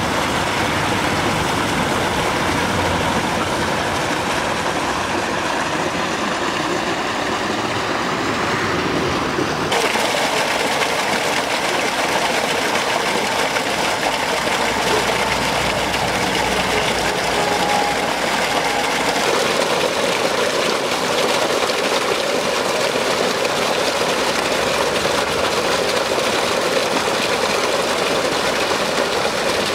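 Water gushing steadily from the discharge pipe of a newly drilled 200-metre borehole and splashing onto the ground, with an engine running under it. The sound shifts abruptly about ten seconds in and again near the twenty-second mark.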